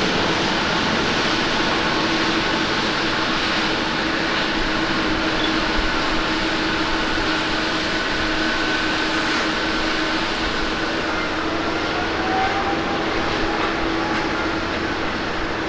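Turbofan engines of a Boeing 737-800 climbing out after takeoff: a steady jet roar with a faint steady whine in it. About twelve seconds in, a faint rising whine joins.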